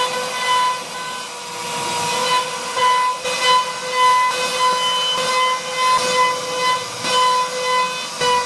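CNC router spindle running with a steady high whine while its bit carves into a wooden plank, the cutting noise rising and falling as the bit moves through the wood.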